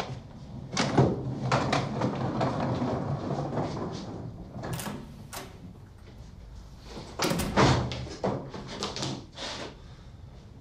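Handling noises: a few seconds of scraping and rustling, then a run of sharp clicks and knocks, loudest about seven and a half seconds in, like doors and drawers being opened and shut.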